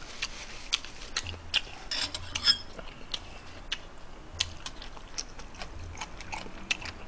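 Quiet eating sounds: irregular small clicks and smacks of a man chewing steamed flower bun with stir-fried pork and peppers, with light clicks from chopsticks and a spoon.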